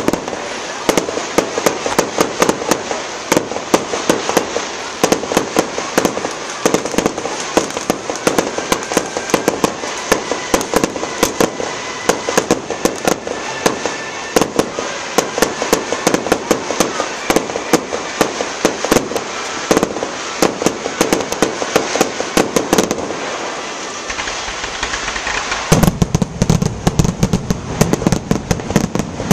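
Fireworks display: aerial shells bursting and crackling in a dense, continuous barrage of sharp cracks and pops, many a second. A deeper rumble joins near the end.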